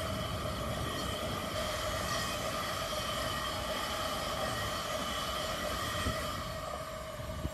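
A train running past, a steady whine of several tones over rail rumble, dropping slightly in level near the end.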